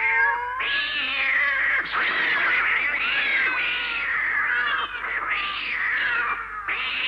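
Several cats yowling and screeching over one another in a fight: one drawn-out yowl first, then a dense tangle of cries from about half a second in, easing briefly near the end.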